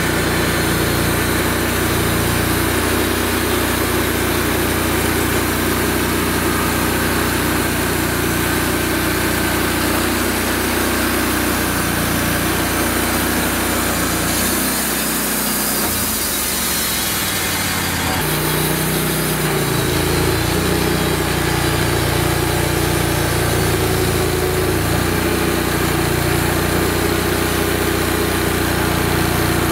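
Wood-Mizer LX150 band sawmill running under load, its engine going steadily as the band blade cuts lengthwise through a cherry log. The sound shifts briefly about halfway through.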